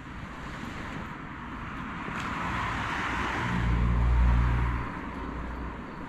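A car passing by. Its tyre noise swells over a few seconds, a low engine hum is loudest about four seconds in, and then it fades.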